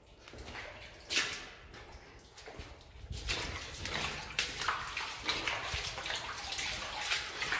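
Footsteps splashing through shallow water on a mine tunnel floor: one splash about a second in, then from about three seconds in a steady run of wading steps.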